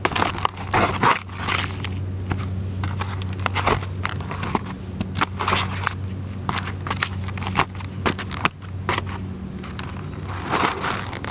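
An empty cardboard pizza box crushed under Herman Survivors leather work boots: irregular, repeated crunches and crackles as the cardboard is stomped flat. A steady low hum runs underneath.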